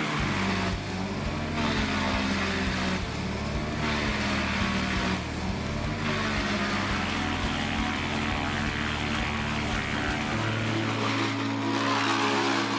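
Morbark M20R whole-tree drum chipper running steadily under load, its engine a constant drone with a dense, rushing layer of chipping noise over it. About eleven seconds in the sound changes as another chipper's engine takes over.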